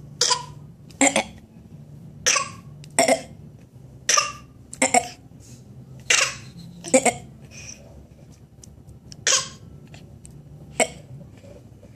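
A person fake-coughing: about ten short, forced coughs, mostly in pairs, with a longer pause a little past the middle.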